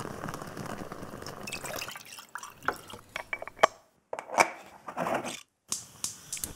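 An aluminium Bialetti Moka Express stovetop coffee maker being assembled: a soft, water-like pouring sound for about the first two seconds, then a series of light metal clinks as the funnel filter and pot parts are handled, with short silences between them.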